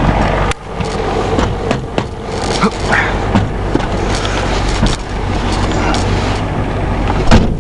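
1990 Ford F250's 7.3-litre IDI diesel idling steadily, with scattered clicks and knocks over it and one sharp bang near the end.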